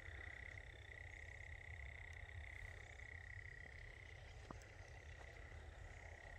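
Faint, steady chorus of calling animals, one continuous high-pitched note, with a low rumble underneath.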